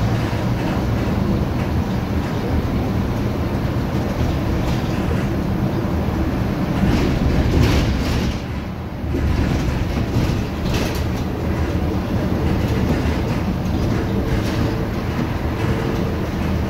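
Volvo B7R LE city bus with a Marcopolo Viale body, moving, its diesel engine giving a steady low drone over body rattle. There are a few clattering knocks about seven and eleven seconds in, and a short dip in loudness between them.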